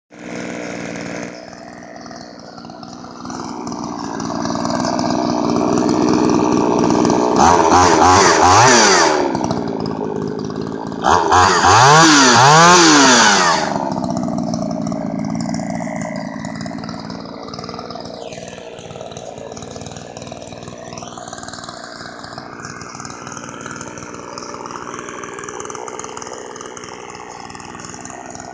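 Vintage Craftsman 358.356081 two-stroke chainsaw running. It is revved up to high speed twice, about eight and twelve seconds in, its pitch climbing and then falling back each time, and afterwards it idles steadily.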